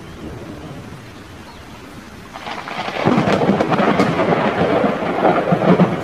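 Steady rain hiss, then a loud crackling thunder roll that builds up about two and a half seconds in and rumbles on for several seconds.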